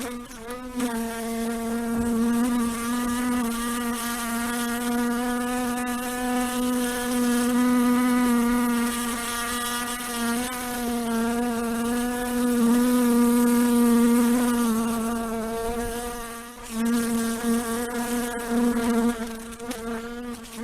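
A fly buzzing in flight: one continuous droning buzz whose pitch wavers slightly. It swells and fades as it moves, dropping away briefly about three-quarters of the way through before coming back.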